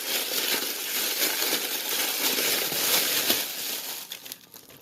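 Plastic oven bag of seasoned chicken crinkling and crackling loudly as it is handled and shaken to mix, stopping about four seconds in.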